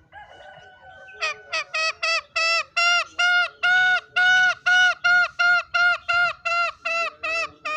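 Green junglefowl calling a long run of short, evenly spaced, pitched notes, about four a second, starting about a second in, quicker and shorter at first.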